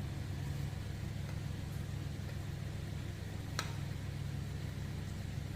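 Steady low hum of kitchen machinery or the stove while milk heats in a pan, with one light metallic clink about three and a half seconds in, typical of a spoon against the pan.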